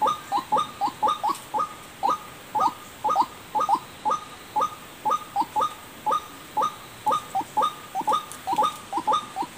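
White-breasted waterhen (ruak-ruak) calls: short notes sliding downward, repeated about two or three times a second in an unbroken run, as used for a bird lure call.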